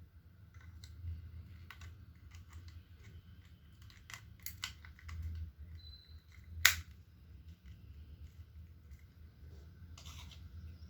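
Small clicks and taps of a fingertip pulse oximeter and its packaging being handled. A short high beep sounds about halfway in, followed at once by a sharp click, the loudest sound; a low hum runs underneath.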